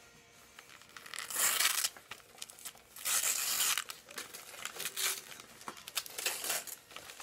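Paper wrapping being crumpled and torn open around a small gift, with a steady crinkling and two louder rips, about a second and a half in and again about three seconds in.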